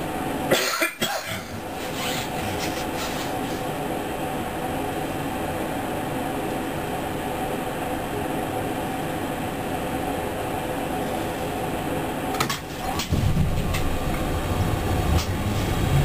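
Train standing with its drive running, a steady hum with a few level tones, then a louder low rumble about 13 seconds in as it starts to pull away. A few brief knocks near the start and just before the pull-away.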